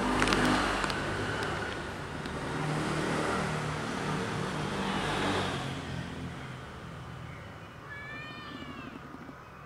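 A vehicle engine rumbles by and fades out over the first half. Near the end a stray kitten gives a few short, high, rising-and-falling meows.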